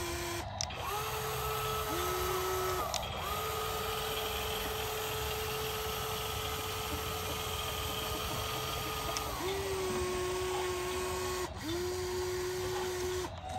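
Small electric motors of a toy RC excavator whining as the boom and bucket move, in several runs that start and stop, with one long run of about six seconds in the middle. At times two motors run at once at different pitches.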